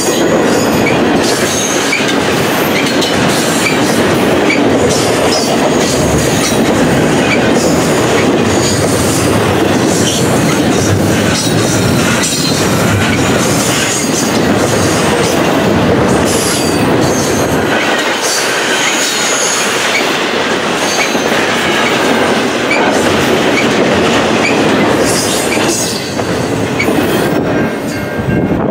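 Double-stack intermodal container cars rolling past at track speed: steady loud wheel-on-rail noise with rhythmic clicking and intermittent high wheel squeal. The noise eases slightly near the end as the last car goes by.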